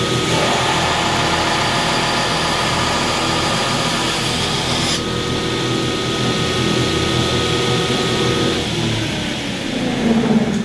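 Belt grinder with a coarse 36-grit belt grinding a hardened, heat-treated steel knife blade: a steady grinding hiss of abrasive on steel over the hum of the motor and belt. The grinding sound changes about halfway through and stops near the end as the blade is lifted off the belt.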